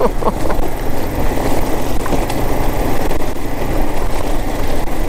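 Kawasaki KLR 650 dual-sport motorcycle riding over loose rock: its single-cylinder engine runs steadily under a dense rumble from the tyres and stones, with a few brief knocks.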